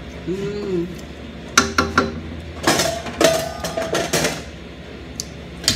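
Cookware being handled: three sharp knocks, then a second or so of clanking with a ringing metallic tone, and a last knock near the end.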